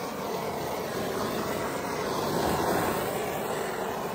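Handheld gas torch burning with a steady hissing roar as its flame is passed over new plastic to burn off the mold release.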